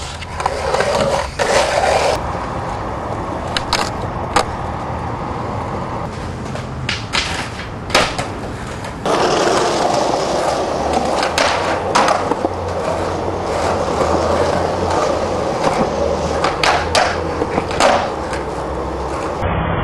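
Skateboard wheels rolling on concrete, with a series of sharp cracks of the tail popping and the board landing. About nine seconds in, the rolling gets louder and rougher.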